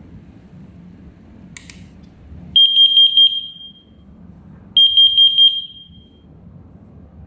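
JKD-621 carbon monoxide detector sounding its alarm after a click: four rapid high-pitched beeps, a pause of about a second, then four more. This is the four-beep pattern of a CO alarm.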